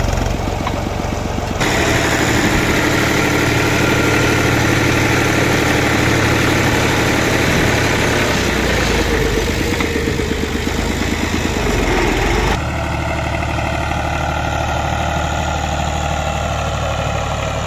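Fiat 480 tractor's three-cylinder diesel engine running steadily as the tractor pushes soil with its front blade. The sound shifts abruptly about a second and a half in and again about twelve seconds in.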